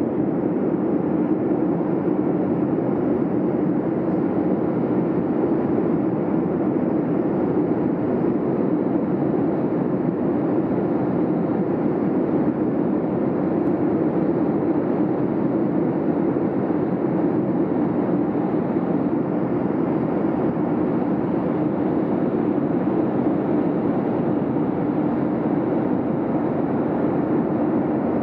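Steady cabin noise of a jet airliner at cruise, heard from inside the cabin: an even, unchanging mix of engine and airflow noise with its weight in the low-mid range.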